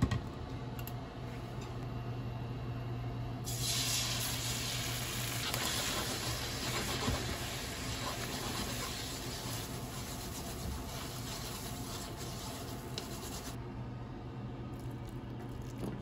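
Beaten egg hitting hot salad oil in a frying pan and sizzling as it is stirred with chopsticks into scrambled egg. The sizzle starts suddenly a few seconds in and fades out a couple of seconds before the end, over a low steady hum.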